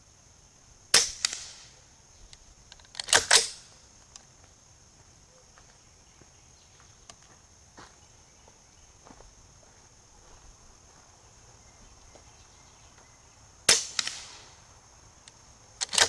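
Suppressed AR-15 in .223 firing subsonic 55-grain handloads: sharp, short cracks without a supersonic boom. There is one shot about a second in, a quick double around three seconds, and more near the end.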